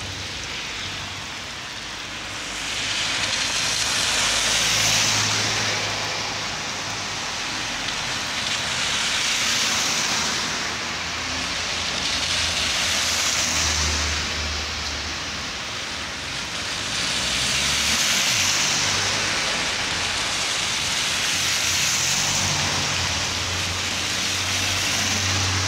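Heavy rain pouring onto an asphalt street, a steady hiss, with cars swishing past on the wet road about five times, each pass swelling and fading.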